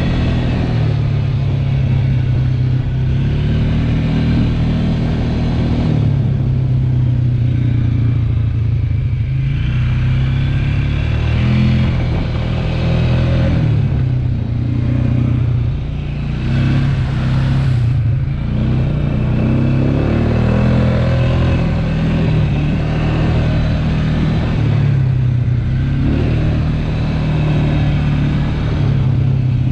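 ATV engine running while riding, its pitch shifting up and down every few seconds with the throttle.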